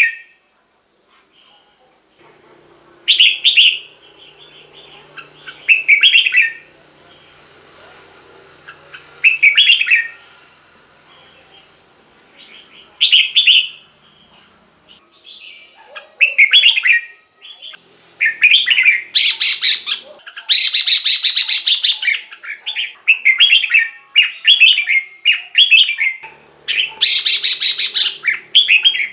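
Red-whiskered bulbul singing loud, short warbled phrases. They come about every three seconds at first, then follow in quick succession over the last ten seconds.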